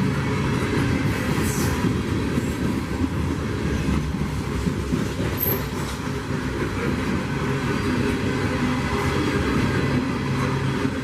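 Freight train cars rolling past, with steel wheels rumbling and clattering on the rails, and a brief high wheel squeal about halfway through.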